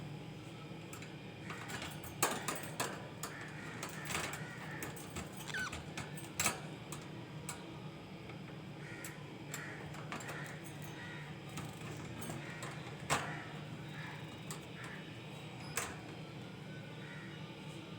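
Budgies (budgerigars) chirping and chattering softly, with scattered sharp clicks and ticks, a few of them louder, over a steady low hum.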